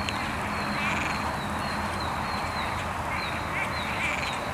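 Steady rain falling on a flooded pond, with frogs calling over and over in short, high chirps.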